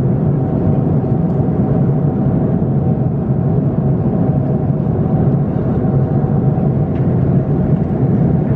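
Airbus A330-200 in cruise, heard inside the cabin: a steady low drone of jet engines and airflow.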